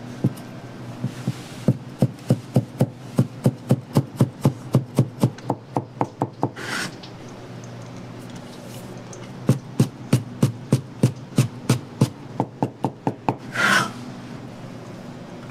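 Kitchen knife chopping on a wooden cutting board in steady strokes, about three a second, in two runs, each run ending with a short scrape across the board.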